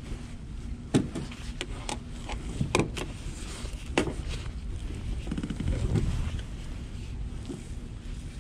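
Handling a tautog on a plastic kayak: sharp knocks and taps about once a second for the first four seconds, then softer rustling as the fish is measured against a ruler, over a steady low rumble.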